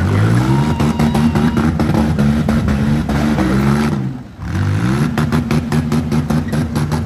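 Demolition derby minivan engine revving hard, its pitch climbing. It backs off briefly about four seconds in, then revs up again, with a rapid run of sharp clicks over it.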